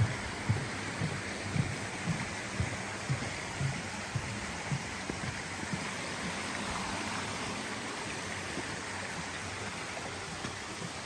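Creek water rushing, a steady hiss. Footsteps thud on the trail about twice a second through the first half, then fade out.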